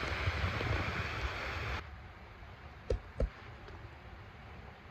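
Wind rushing and buffeting on the microphone, cutting off abruptly about two seconds in. Then it is quiet apart from two short knocks in quick succession.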